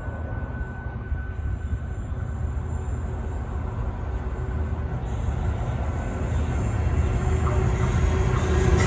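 CBH grain train's diesel locomotives approaching, a low engine rumble that grows steadily louder as the train nears.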